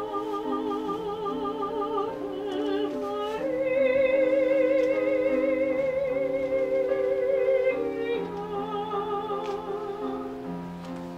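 A classically trained voice sings long held notes with a wide vibrato over a sustained instrumental accompaniment, rising to a louder, higher held note between about 3.5 and 8 seconds in.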